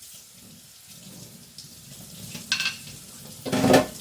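Carbon-steel knife blade being stroked across a wet waterstone, a steady gritty scraping with two louder strokes about two and a half and three and a half seconds in.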